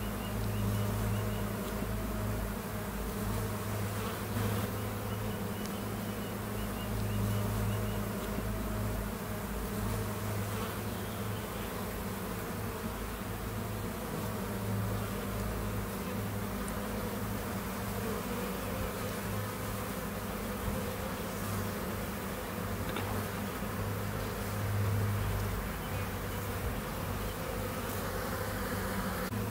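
Honeybee colony humming: a steady low drone of many bees together that swells and eases slightly.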